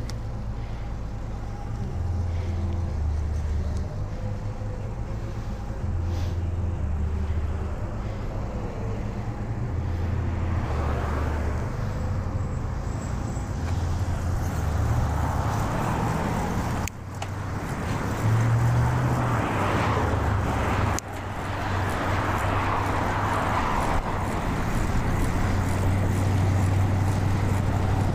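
Road and wind noise on a cyclist's clip-on microphone during a bicycle ride, with a heavy low rumble throughout. Motor traffic goes by several times, mostly in the second half.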